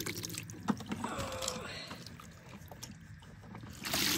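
Wet Orbeez water beads being poured into a plastic toy dump truck: a soft, wet rattling with a few light clicks, and a louder rush of beads near the end.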